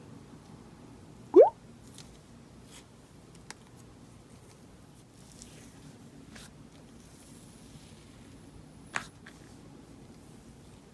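Slime mixed with clay being kneaded and pressed by hand, giving soft squishes and small clicks. About a second and a half in comes one loud, short squeak that rises in pitch, and near the end a sharp click or pop.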